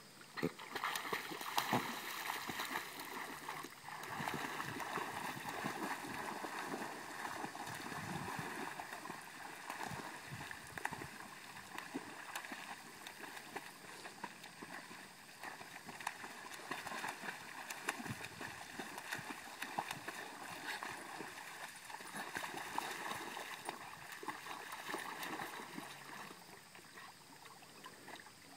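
Water sloshing and splashing around a vizsla as she swims and paddles through a pond, a little louder in the first few seconds.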